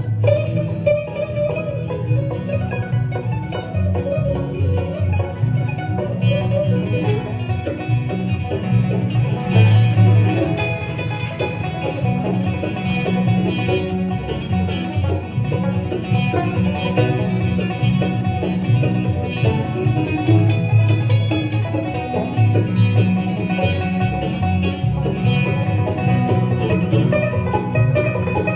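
Bluegrass band playing on acoustic guitars, mandolin, banjo and upright bass.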